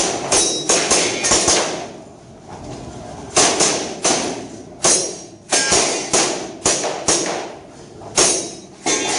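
Gas airsoft pistol fired in quick strings of sharp shots, about three a second, with pauses of a second or two between strings.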